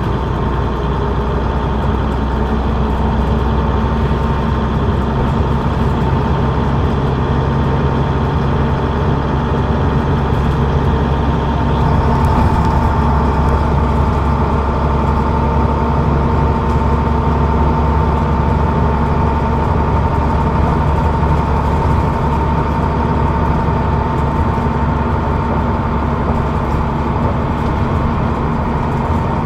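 Leyland Atlantean double-decker's rear-mounted Leyland O.680 diesel, heard from the back seat, running steadily under way with a low drone and a constant whine above it, growing a little louder about halfway through.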